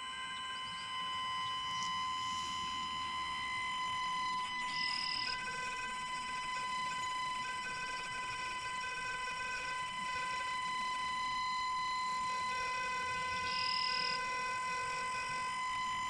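Battery-powered electronic instruments improvising: a steady high-pitched drone of several held tones. A lower tone pulses on and off beneath it, and a brief brighter, higher tone sounds twice, about five seconds in and again near the end.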